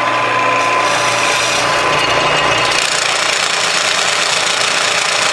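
Wood lathe running with a parting tool cutting into a spinning maple blank: a steady scraping over the lathe's hum and whine, with the cutting starting under a second in. A little clicking at each turn means the cut has not yet cleared a gouge in the wood.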